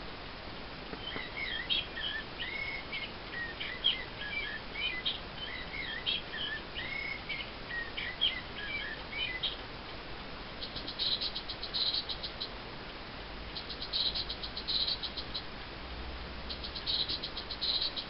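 Bird-song clock playing recorded songbird calls: first a warbling song of short, quick chirps lasting about eight seconds, then a different call, three bursts of rapid high trilling, each about two seconds long.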